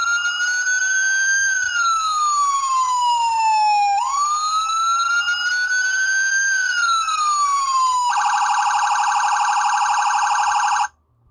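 Hornit Mini electronic bicycle horn playing its police-siren sound. It gives two slow wails, each rising and then falling in pitch, then a rapid warbling tone for about three seconds that cuts off near the end.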